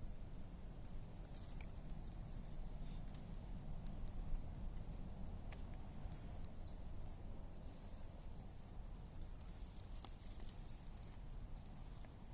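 Quiet outdoor ambience: a steady low rumble, with scattered faint clicks and a few short, high chirps spread through.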